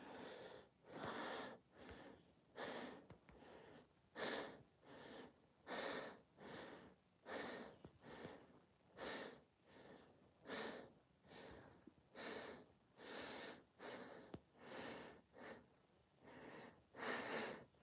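Faint, steady breathing from a man, quick in-and-out breaths at a little over one a second: he is out of breath and recovering from calisthenics chest exercises.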